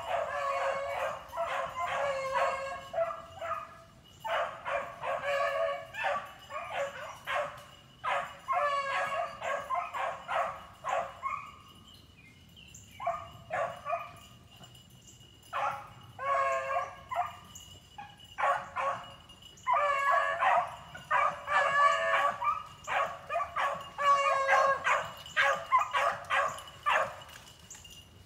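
A pack of beagles baying in bursts of overlapping calls, several dogs giving voice at once, with two short lulls about halfway through.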